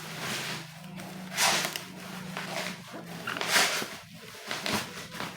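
Cardboard packaging being handled and pulled open: several rustling, scraping swishes over a faint steady low hum.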